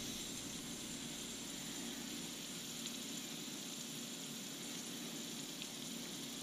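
Steady, faint hiss of butane gas flowing from an inverted refill can into the fill valve of a butane soldering iron as it is refilled.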